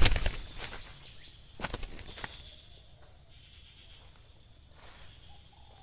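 Spotted dove flapping its wings and rustling on the ground in brief flurries: a fading flurry at the start, then two short ones about one and a half and two seconds in.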